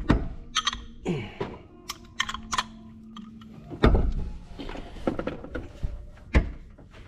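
Metal hand tools clicking and knocking as a socket and extensions are handled and fitted together, with a heavier knock about 4 seconds in and another near the end.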